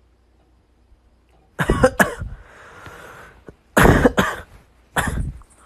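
Coughing in three short fits of one or two harsh coughs each.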